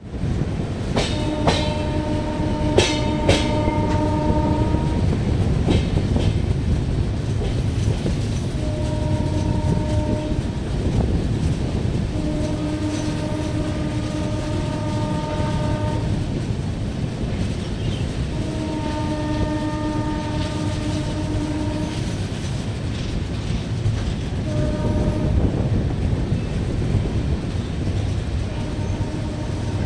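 Indian Railways WAP-1 electric locomotive's horn sounding in repeated long blasts, each a chord of several tones. Beneath them is the steady rumble and clatter of the passenger coaches' wheels on the rails, with a few sharp clicks in the first few seconds.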